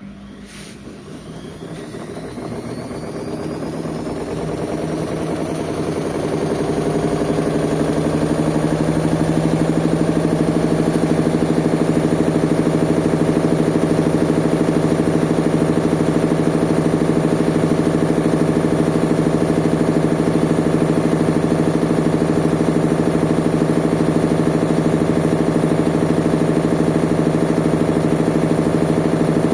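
Whirlpool washing machine starting a spin: a click, then the motor and drum whine rising in pitch and loudness for about eight seconds as the drum comes up to speed, then spinning steadily at full speed.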